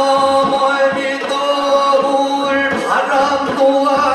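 Korean Buddhist chanting (yeombul), sung in long held notes that step between pitches.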